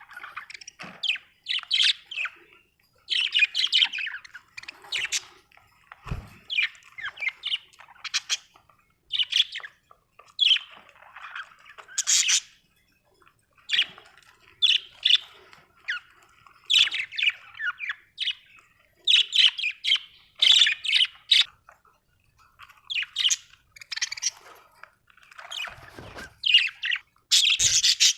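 Budgerigars chirping and chattering: quick, irregular runs of short high chirps with brief gaps between them. A few low thumps come through, about six seconds in and again near the end.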